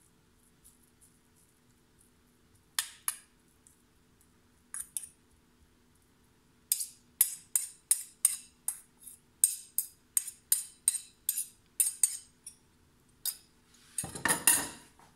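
Metal fork and spoon clinking and scraping against a glass baking dish while pesto is spread over salmon: a few separate clinks at first, then a quick run of about two clinks a second from about halfway. Near the end comes a louder, denser stretch of knocks and rustling.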